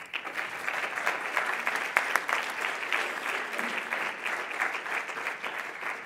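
Audience applauding, a steady patter of many hands clapping.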